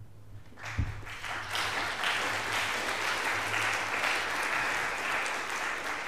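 Audience in a lecture hall applauding. The clapping starts about half a second in, swells over the next second, holds steady and begins to thin out near the end. A single low thump comes just as it starts.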